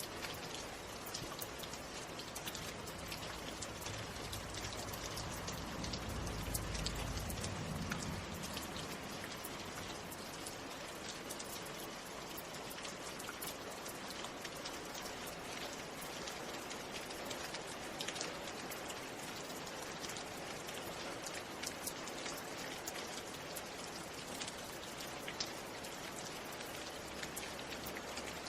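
Steady rain, with many individual drops ticking on a surface. A low rumble swells and fades about four to eight seconds in.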